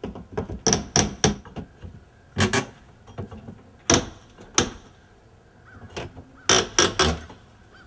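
Hammer claw prying brick molding off an exterior door frame, worked down its length a little at a time: a series of sharp knocks and cracks in clusters of two or three.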